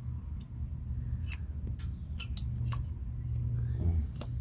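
Light, sharp clicks and ticks of brake pads and their metal hardware being handled against the caliper bracket, about seven scattered irregularly, over a steady low hum.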